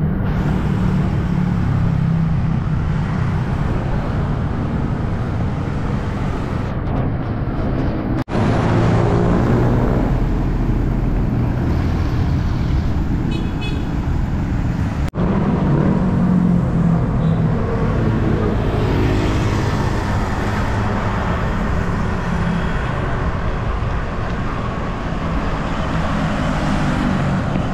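Road traffic, motor vehicles going by, over a steady low rumble of wind on the microphone of a moving bicycle. The sound cuts out for an instant twice.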